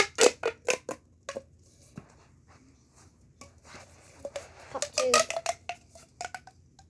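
Plastic pop tube being stretched and squeezed: quick runs of sharp clicks and snaps, in two bursts, the second a few seconds in with a short pitched zip.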